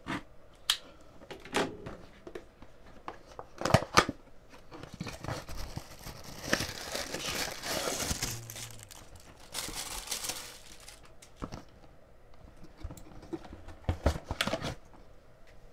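Packaging of a new computer mouse being unwrapped by hand: crinkling and tearing for several seconds in the middle, with sharp clicks and knocks of the box being handled early on and again near the end.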